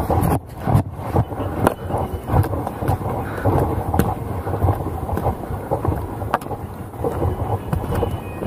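A hiker's footsteps on a dirt trail with irregular scuffs and knocks, picked up by a chest-mounted camera, over a steady rumble of clothing rubbing and wind on the microphone.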